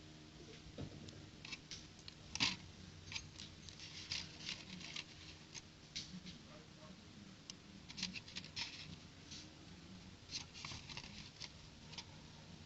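Sluban plastic building bricks being handled and pressed together: scattered light clicks and rustles, the sharpest about two and a half seconds in.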